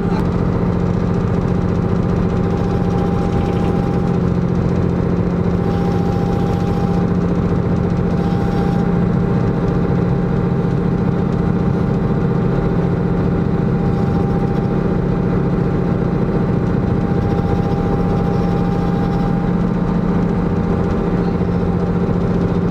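A small passenger ferry's engine running steadily under way, a constant low drone.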